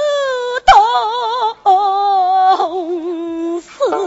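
A woman singing a Suzhou pingtan tanci aria in a wordless, drawn-out melismatic style: several long held notes with wide, wavering vibrato, broken by short breaths. A single sharp click sounds just under a second in.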